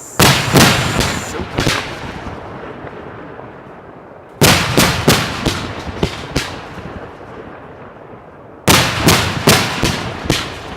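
Professional display fireworks banging in three rapid volleys about four seconds apart, each a quick run of several sharp, loud reports that trail off in echo.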